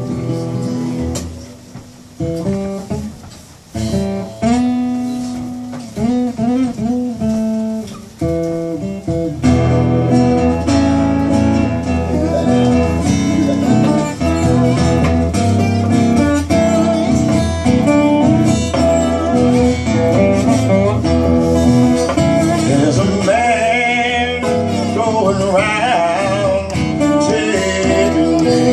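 Two acoustic guitars playing a blues together live, starting with sparse notes that glide in pitch, then joining into fuller, louder playing about nine seconds in.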